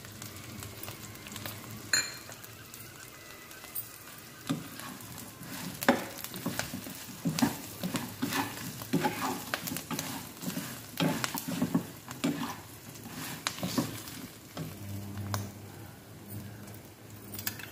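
Fried vegetable balls being stirred and tossed with a plastic spatula in a non-stick wok, the spatula scraping and tapping the pan in irregular strokes over a light sizzle. The stirring gets busier a few seconds in.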